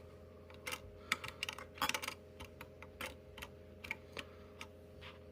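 Light, irregular clicks and ticks of the AM5 CPU socket being closed: the metal load plate lowered over the Ryzen 5 9600X and the retention lever latched back down.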